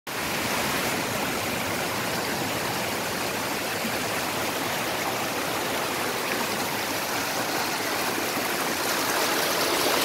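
Shallow rocky stream rushing and splashing over stones in a steady, even flow, growing a little louder near the end.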